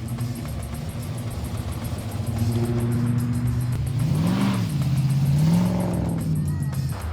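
Car engine idling, then revved briefly about four seconds in and held higher again just after five seconds before dropping back near the end.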